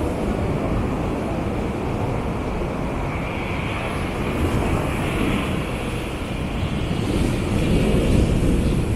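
Beach ambience: wind buffeting the microphone with the wash of surf, a dense low rumbling noise that grows a little louder near the end.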